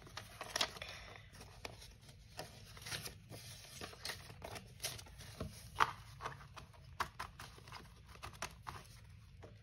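Paper banknotes rustling and crinkling as they are counted and handled, in a run of short, irregular crackles.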